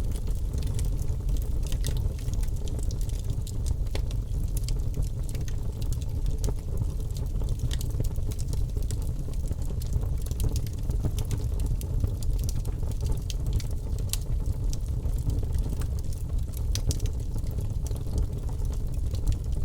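Birch logs burning in a fireplace, crackling with frequent small, irregular pops over a steady low rumble of the flames.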